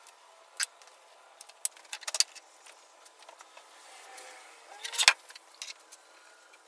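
Scattered light clicks and knocks of a plywood box beam and rag being handled on a workbench while dark stain is wiped on. The loudest knock comes about five seconds in, as the beam is tipped up onto its end.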